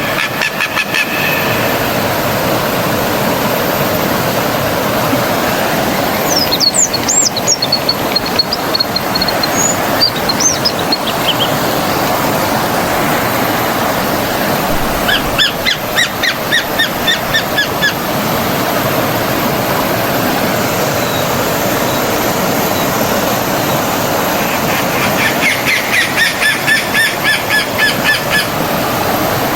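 Forest stream flowing steadily, with birds singing over it: scattered high whistled chirps and glides from about six seconds in, then a quick run of repeated notes around the middle and another near the end.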